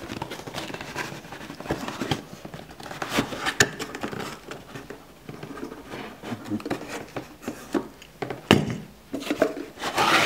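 Cardboard shipping box being opened and unpacked by hand: cardboard rustling and scraping with irregular light knocks and clicks, and a couple of louder knocks near the end.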